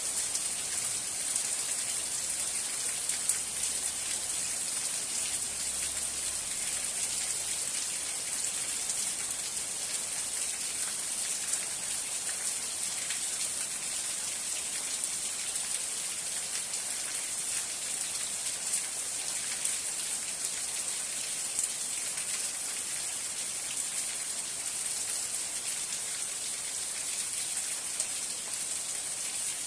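Steady rain falling on a surface, a dense even hiss with many fine individual drop ticks throughout.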